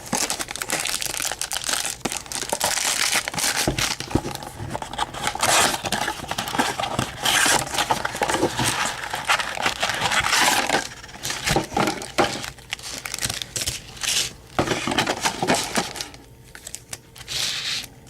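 Plastic wrapping and foil card packs crinkling and tearing as a retail box of baseball cards is opened, with many sharp crackles, easing off about two seconds before the end.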